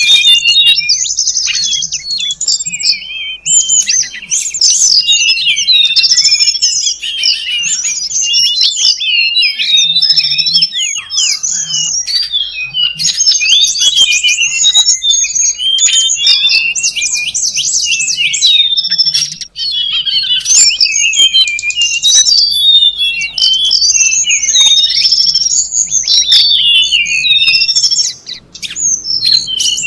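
Tledekan gunung birdsong used as a lure and training call: a dense, unbroken run of rapid high chirps, trills and sliding whistles with only brief breaks.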